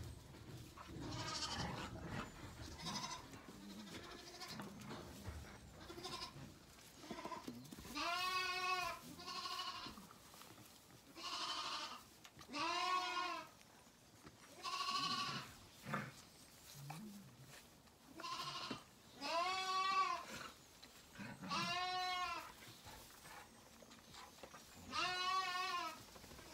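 Zwartbles lambs bleating, about five loud calls spread through, each rising then falling in pitch, with softer scuffling noises in between.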